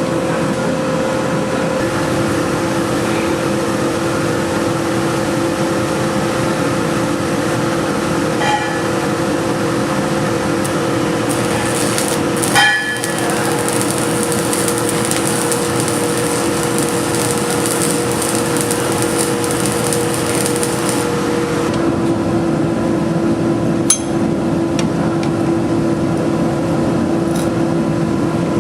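A forge running with a steady roar and two steady hum tones, with a few sharp metallic clinks. An extra high hiss comes in for several seconds partway through.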